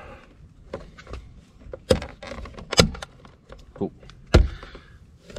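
Plastic side-mirror cap being pressed and snapped onto its tabs: a few sharp clicks and knocks, the heaviest a deeper thump near the end.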